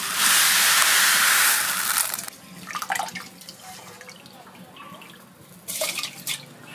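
Water poured into a steel bowl, a loud steady splashing for about two seconds, then quiet small splashes and clicks as soaked rice is scooped out of the water by hand and dropped into a metal pot, with a short splash about six seconds in.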